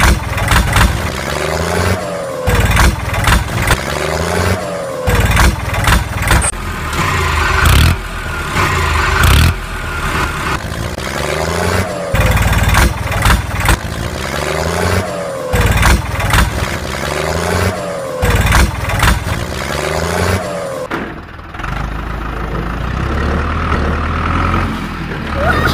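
Added tractor engine sound effect under a toy tractor towing a toy truck: a short engine clip looped over and over, repeating about every two and a half seconds, each time with a brief falling whine. Near the end it changes to a steadier low engine rumble.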